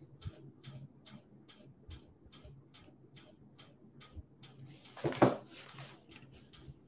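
Faint, regular ticking, about four ticks a second, with one brief louder noise about five seconds in.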